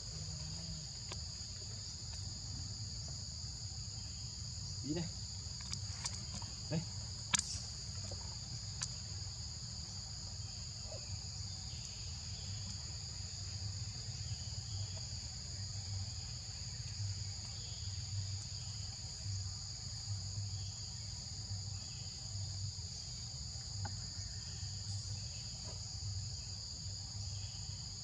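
Steady high-pitched chirring of forest insects, two unbroken tones running together, over a low background rumble. A few sharp clicks sound a few seconds in.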